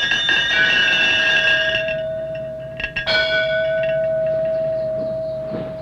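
A small bell ringing: it is struck again about three seconds in, and its clear tones ring on and slowly fade.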